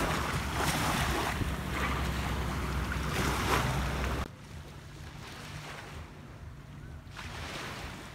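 Small waves lapping on a sandy shoreline, with wind rumbling on the microphone. About four seconds in the sound drops suddenly to a quieter wash of water.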